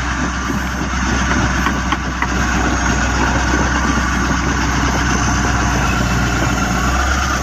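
Komatsu D85PX bulldozer's diesel engine running steadily as the dozer slowly pushes and spreads a stockpile of material.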